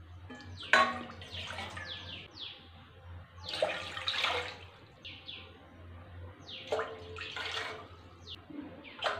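Water poured from a steel tumbler into an empty steel pot, splashing on the metal bottom in about three pours a few seconds apart. Birds chirp briefly between the pours.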